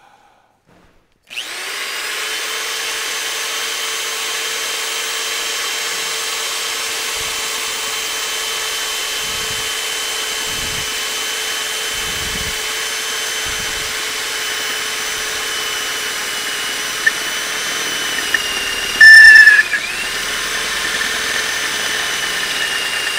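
Electric drill starts about a second in and runs steadily with a motor whine while a hand-sharpened twist drill bit cuts into steel tubing. Near the end the motor pitch dips under load, and two brief, very loud squeals are the loudest sounds.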